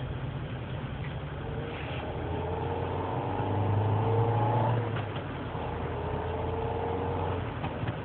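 Renault Scenic II 1.6 16V four-cylinder petrol engine running with a deep drone. Its revs rise for a couple of seconds and drop back sharply about halfway through, then hold steady. The owner puts the drone down to a defective catalytic converter, its broken ceramic remains vibrating and rattling inside.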